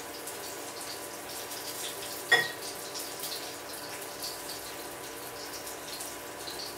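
A wire balloon whisk beating a thin liquid in a ceramic bowl: a steady wet swishing with faint clicks of the wires against the bowl, and one sharper knock about two seconds in.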